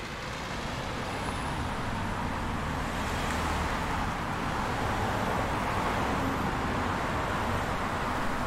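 A steady, even rushing noise with a low hum beneath it, swelling slightly over the first few seconds.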